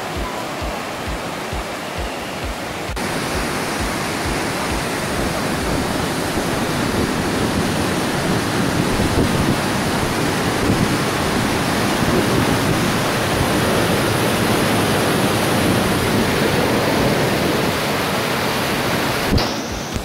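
Mountain stream rushing over boulders in small cascades and white-water chutes: a steady, even rush of water, a little louder after about three seconds.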